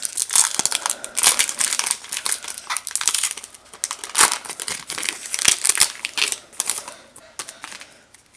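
Foil wrapper of a Pokémon TCG Phantom Forces booster pack crinkling and tearing as it is pulled open by hand, dying down near the end.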